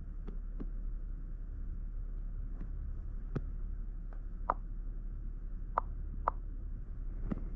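Scattered small clicks of the Oculus Go handheld controller's buttons as search results are browsed and a video is chosen, over a low steady hum. The sharpest clicks come in the second half, a few in quick succession.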